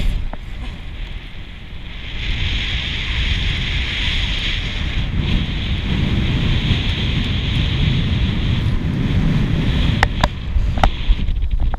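Wind buffeting the microphone over the steady wash of surf, with a few sharp clicks near the end.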